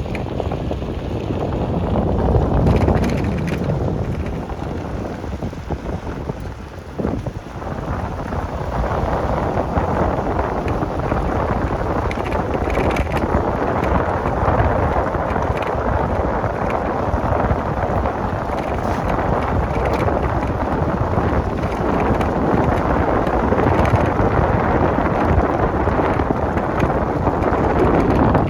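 Wind buffeting the microphone: a steady rushing rumble that eases briefly about seven seconds in.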